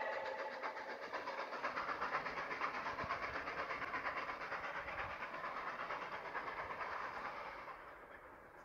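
Train running on the track: a steady rushing noise with a fast, even pulsing that fades away about eight seconds in.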